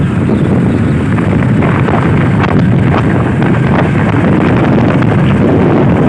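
Steady wind rush on the microphone of a Yamaha motorcycle riding at road speed, with the bike's engine running underneath.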